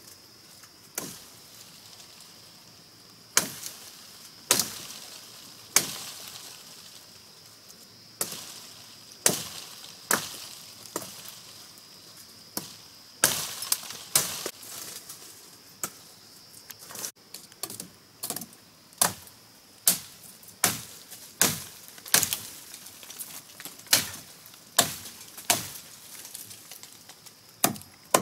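Repeated sharp blows of a hand tool striking wood. The blows are spaced irregularly at first, then fall into a steady rhythm of a little more than one a second in the second half.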